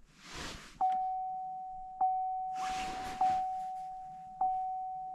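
A car's warning chime dinging four times, evenly paced about one ding every 1.2 seconds, each a single clear tone that fades away. Short breathy hisses sound between the first dings.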